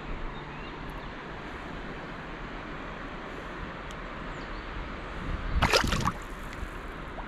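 River water flowing steadily, with a short loud burst of noise about five and a half seconds in.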